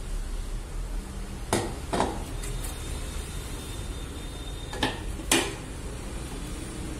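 Stainless steel bowls and plates clinking against each other as ingredients are tipped into a steel mixing bowl. There are four sharp clinks, a pair about a second and a half in and another pair near five seconds, over a steady low hum.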